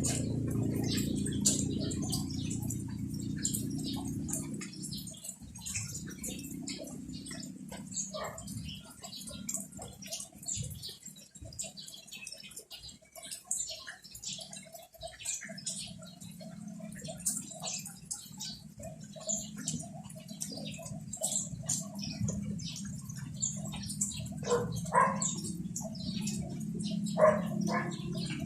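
Steady rain pattering, with a run of short repeated animal calls in the middle and two louder calls near the end.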